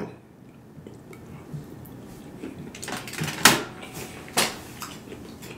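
Eating sounds at a plastic takeout container: a few sharp clicks and taps over low background noise, starting about three seconds in and coming four times over the next two seconds.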